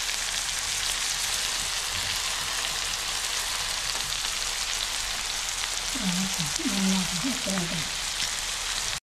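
Food sizzling in a frying pan: a steady, even hiss with no break. A voice is heard briefly about two-thirds of the way through.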